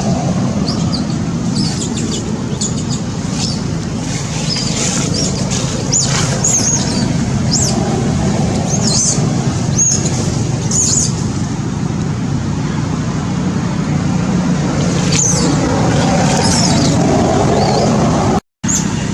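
Steady low rumble, like outdoor traffic or engine noise, with many short high-pitched chirps and squeaks over it. The sound cuts out briefly near the end.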